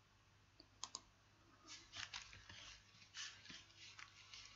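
Faint typing on a computer keyboard: two sharp clicks about a second in, then a run of soft, uneven key taps.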